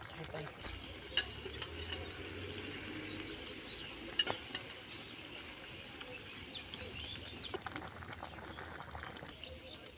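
Metal kitchen utensils clinking and scraping against a pan or dish, with a few sharp clinks over a steady low background that stops near the end.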